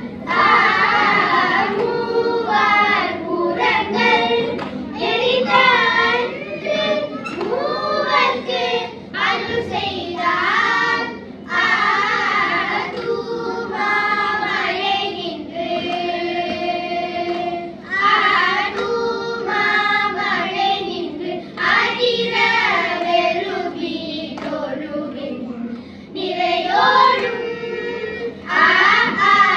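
A group of children singing a Tamil devotional hymn together, a melodic line that bends from note to note, with a long held note about halfway through.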